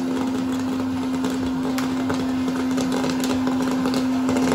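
Electric hot-air popcorn popper running: a steady motor-and-fan hum with an even rush of blown air, and occasional light ticks of corn popping and landing in the bowl.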